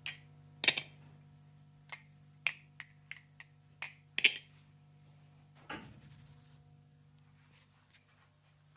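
Balisong butterfly knife being flipped to work fresh oil into its bushing pivots: a quick series of sharp metal clicks as the handles swing and clack. The clicks stop after about four seconds, followed by one softer handling sound.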